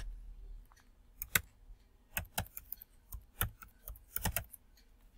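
Typing on a computer keyboard: a quick, irregular run of quiet keystrokes as text is entered into a form field.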